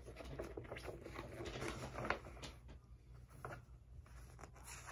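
Magazine pages being turned and handled: faint paper rustling with small scattered clicks.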